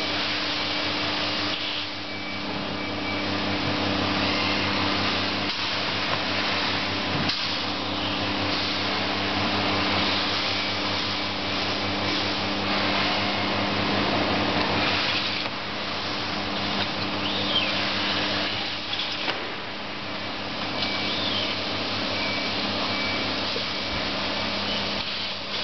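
The 3 kW vacuum pump of a Vaculex vacuum tube lifter running steadily: a hum with a rushing air hiss as air is drawn through the lift tube, its level rising and falling a little.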